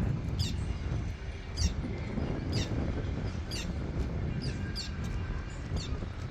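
A bird repeating short, high chirps that fall steeply in pitch, about one a second, over a steady low rumble.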